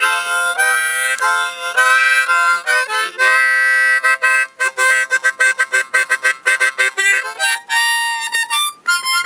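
Harmonica playing solo: held chords and note runs, with a stretch of quick, choppy repeated notes in the middle and a brief break near the end.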